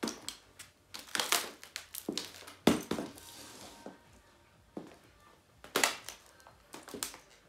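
Laptop's shattered screen and plastic case cracking and crunching under stiletto high heels being stomped on it. A run of sharp cracks comes in the first three seconds, the loudest about two and a half seconds in, and more cracks come about six and seven seconds in.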